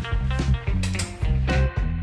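Background music: an upbeat, swing-like tune with a steady beat.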